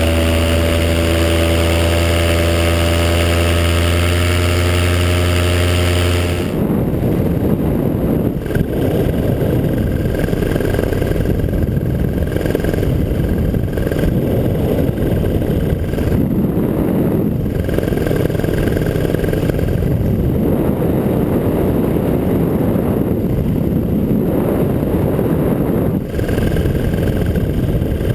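Paramotor engine running steadily at high revs. About six and a half seconds in the sound changes abruptly to a rougher, noisy rush with a faint high whine that comes and goes.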